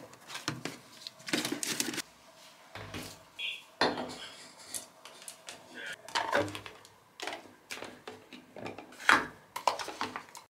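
Plastic toiletry bottles and jars clattering and knocking as they are handled and set down on a shelf, in irregular knocks a second or two apart.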